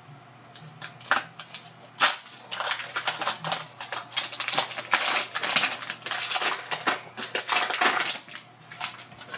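Plastic wrapper of a Clearly Donruss basketball card pack being crinkled and torn open by hand. A few sharp crackles at first, then a dense run of crinkling from about two seconds in until shortly before the end.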